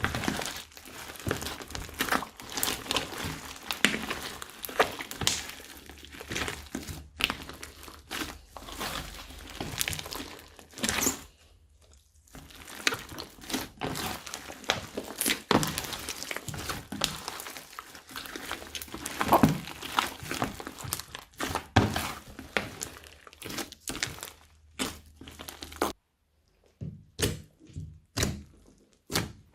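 Hands squishing and kneading slime: a dense stream of sticky clicks and crackles, with a brief lull about eleven seconds in and only a few sharp clicks near the end.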